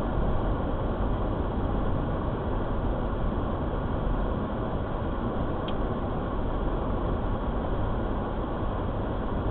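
Steady road and engine noise inside a moving car's cabin, a low, even rumble with a faint tick about halfway through.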